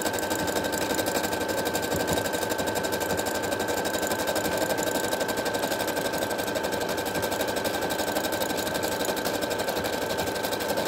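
Brother FS155 computerized sewing machine running steadily, sewing a decorative embroidery-style stitch: a rapid, even clatter of needle strokes over a steady motor whine.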